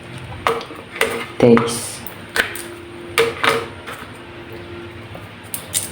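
Kitchenware being handled: a string of separate sharp clinks and knocks, about eight over a few seconds.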